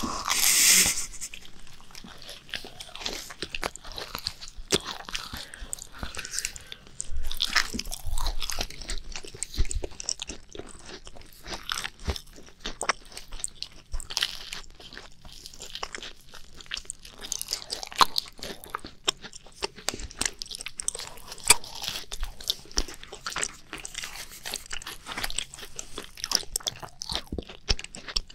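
Close-miked macarons being bitten and chewed: crisp shells crunching and crackling in many small irregular clicks, between stretches of softer chewing. There is a louder burst of noise right at the start.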